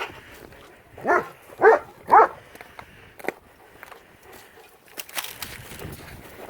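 Dog giving three short barks about half a second apart, followed a few seconds later by a brief crunch.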